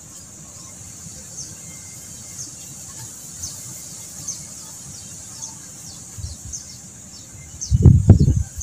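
Quiet swamp ambience: a steady high-pitched insect drone with short, falling bird chirps about once a second. Near the end, loud low rumbling bumps.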